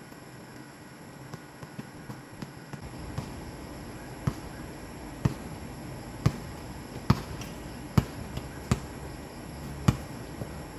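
A basketball being dribbled on a hard outdoor court: faint light bounces for the first few seconds, then sharp single bounces about once a second from about four seconds in.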